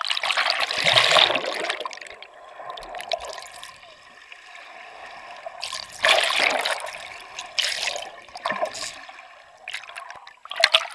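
Pool water rushing and bubbling around an action camera as it is dunked under and pulled out again, in several surges: the loudest about a second in, another around six seconds, and a short sharp one near the end.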